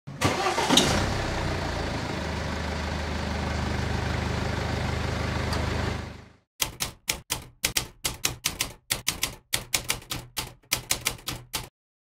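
A car engine starts with a choppy burst, then runs steadily for several seconds before fading out. Then a run of about twenty typewriter keystrokes, sharp clacks at an uneven pace.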